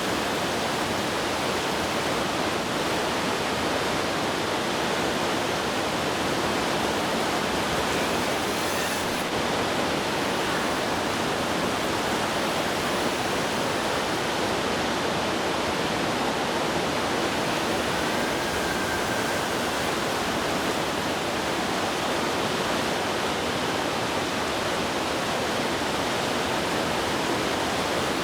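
Heavy rain pouring down, a steady even hiss with no pauses or changes.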